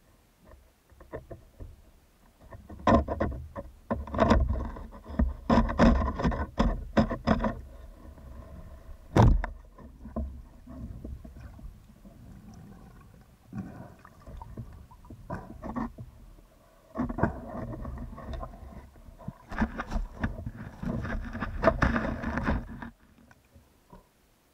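Underwater sound of a band-powered carbon speargun (arbalete) heard through the gun-mounted camera: bursts of clicking and knocking in the water, then a single sharp crack about nine seconds in as the gun fires. Near the end there are more knocks and rubbing as the speared fish is handled.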